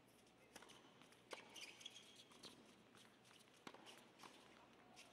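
Faint tennis rally on a hard court: a serve struck about half a second in, then several more racket strikes on the ball at irregular intervals, with a few short shoe squeaks.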